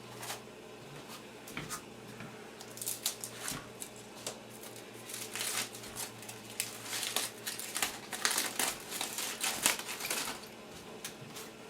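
Rustling and quick light clicks and taps of baked potatoes being handled and served onto plates, busiest through the middle of the stretch, over a steady low hum.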